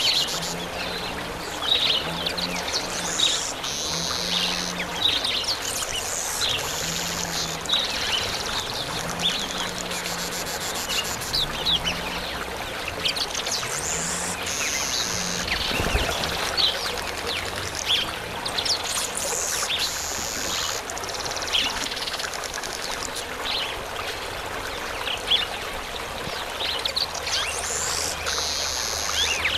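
Male southern masked weavers (Ploceus velatus) chattering: a steady run of short, high notes broken every several seconds by a buzzy stretch of song. Steady running water sounds underneath.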